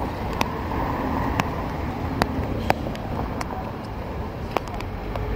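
City street traffic noise: the low, steady rumble of a waiting bus's engine, with about six sharp clicks scattered through.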